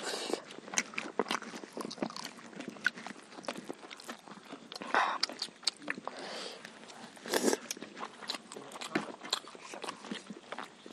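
Close-up eating sounds: chewing, biting and crunching on fried chicken lollipops and biryani eaten by hand, a steady run of small clicks and mouth smacks with two louder bursts near the middle.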